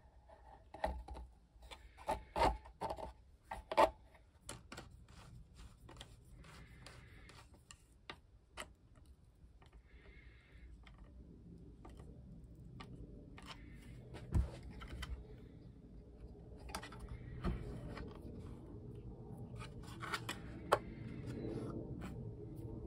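Hard plastic parts being handled and fitted together: a series of sharp clicks and knocks, densest in the first few seconds, with rubbing and scraping between them. A low steady background hum builds in from about halfway.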